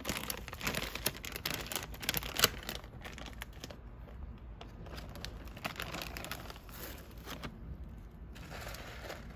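Rapid kissing and clicking sounds made with the mouth to coax a cat out of the bushes, thickest in the first few seconds and then more scattered.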